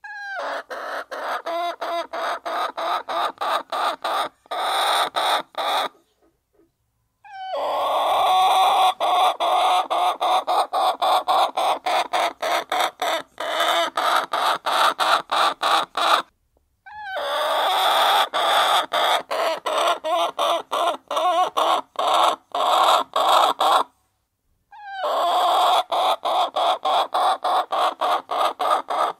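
A flock of hens clucking together as they feed, in a steady dense chorus. The sound cuts out completely three times for a second or so.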